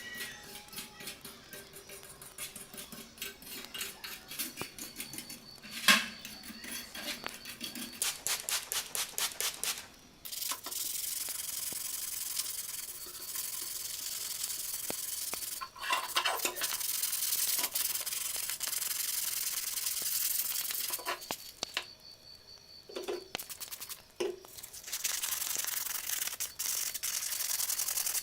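Sanding: a run of quick rubbing strokes, then long stretches of steady abrasive scraping broken by short pauses. A single sharp knock comes about six seconds in.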